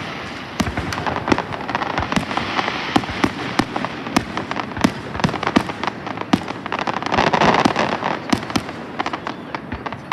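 Fireworks going off in rapid succession: many sharp cracks and bangs over a continuous crackling, with a louder crackling burst about seven seconds in.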